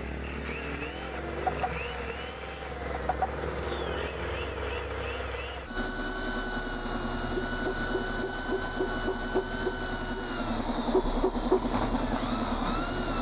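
Electric hand drill boring into the Honda TMX 155's crankcase beside the stud bore, its motor running with a steady whine. The hole is for a locking screw that keeps the threaded sleeve insert in the stripped stud hole from turning. About six seconds in the sound jumps louder and the whine becomes clearer.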